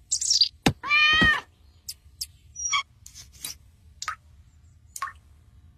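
Cartoon bird sound effects: a quick falling chirp, then a loud wavering squawk about a second in, followed by scattered short clicks and chirps.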